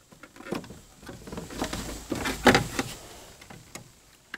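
Plastic taillight parts clicking, knocking and rattling as they are handled and fitted into a VW Vanagon's rear light housing: a string of clicks with the loudest knock about halfway through.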